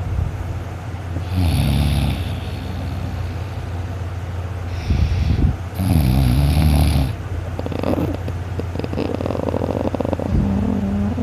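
Snoring in sleep: two long, rasping snores about four seconds apart, and a shorter, softer one near the end, over a steady low hum.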